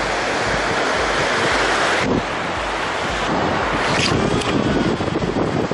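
Ocean surf washing in at the water's edge, with wind buffeting the microphone; the noise drops suddenly about two seconds in.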